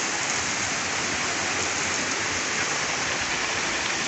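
Steady rush of water falling and splashing into a swimming pool.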